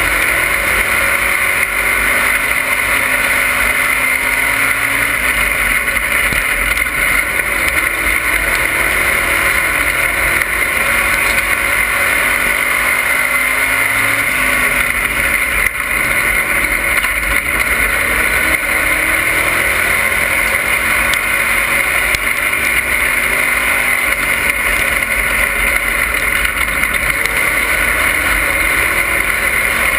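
Race car engine running hard at racing speed, heard from inside the cockpit: a loud, steady drone whose pitch rises and falls slightly again and again.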